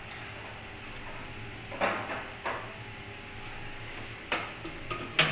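Metal clunks as the electric facing tool of a hydraulic HDPE butt fusion machine is handled and set down into the machine frame: four sharp knocks, the loudest near the end, over a steady low hum.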